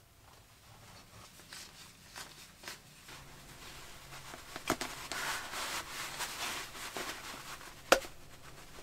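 Gloved hands working a small orange tool on PEX tubing: soft rustling and scraping that grows from about halfway, with a click about halfway through and a sharper click near the end.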